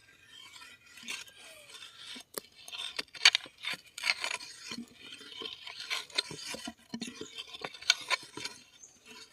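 Metal digging spade scraping and prying in soil, with irregular scrapes and clinks of the blade as it works a snail out of the ground.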